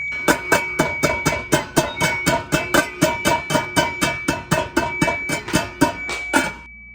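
A quick, even series of pitched plucked notes, about four a second, over a steady high whine; the notes stop suddenly near the end, leaving the whine.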